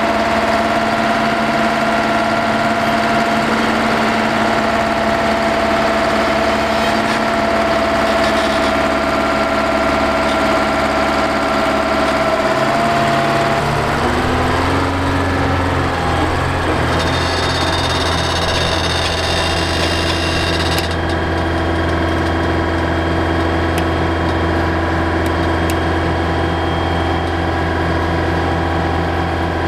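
A Warner & Swasey Hopto H-1900 hydraulic excavator's diesel engine running steadily under load. Its tone shifts abruptly about halfway through and again later, as if clips of the machine are cut together.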